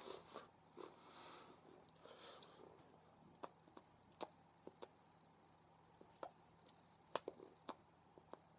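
Near silence: room tone with faint breathing through the nose near the start, then a scattering of small sharp clicks and taps.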